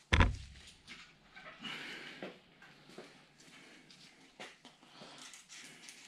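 A single heavy knock right at the start, then a short rustle and scattered light clicks and taps as bike parts and tools are handled at a workbench and handlebar.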